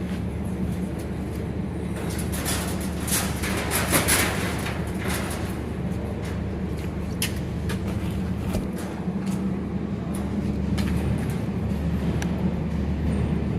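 Steady low machine hum, with scattered clicks and clatter of tools and parts being handled, busiest a few seconds in.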